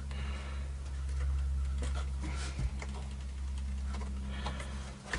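Scattered light clicks and scrapes of small hardware, a washer and nut, being fitted by hand onto a bolt on a plywood benchtop planer, over a steady low hum.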